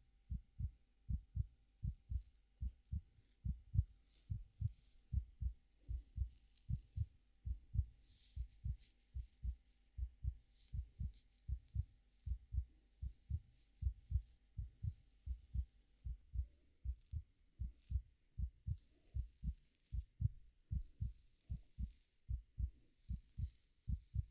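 A heartbeat thumping steadily in lub-dub pairs, about one beat a second, with soft rustling swishes of hair being played with laid over it.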